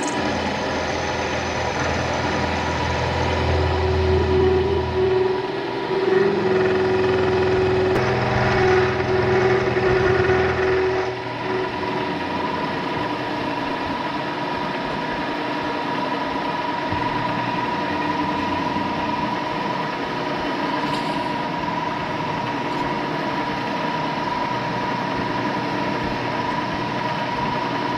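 Vertical milling machine running steadily with a constant high whine, working on a Model T driveshaft. A deeper hum joins it for the first eleven seconds or so, then stops.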